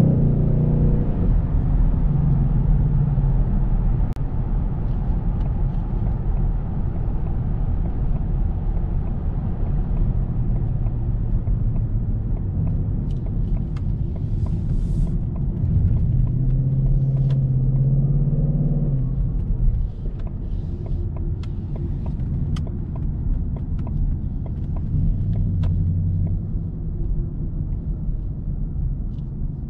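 Ford Mustang GT's 5.0 V8 running as the car is driven: a low steady rumble whose engine note swells several times, loudest for a few seconds a little past the middle.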